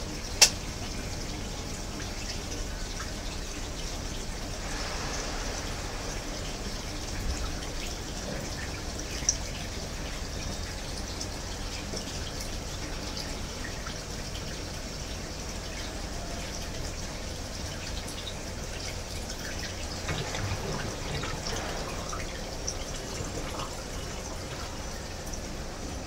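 Water dripping and trickling inside the wash tub of an Electrolux EWT705WN top-loading washing machine, over a low steady hum. A sharp click about half a second in and another at about nine seconds.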